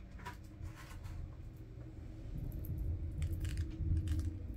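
Salt sprinkled by hand from the fingertips onto wet ink on watercolour paper: a scatter of faint light ticks, thickest about three to four seconds in.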